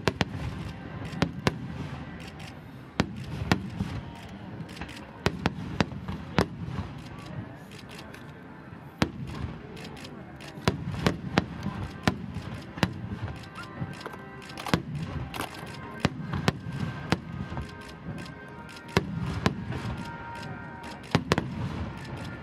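Star mine fireworks barrage: many shells bursting in quick succession, sharp bangs several times a second over a continuous low rumble.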